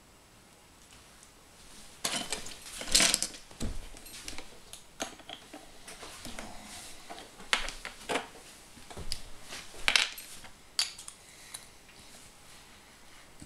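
Loose plastic LEGO pieces clicking and clattering as they are picked through and handled on a tabletop. A string of sharp clicks and short rattles starts about two seconds in, the loudest around three and ten seconds in, then dies down.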